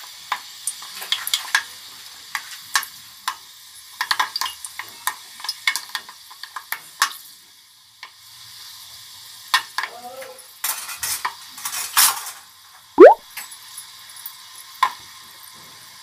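Fenugreek seeds sizzling in hot mustard oil in an aluminium pot: a steady hiss with many sharp crackling pops. About thirteen seconds in comes one short, loud rising squeak.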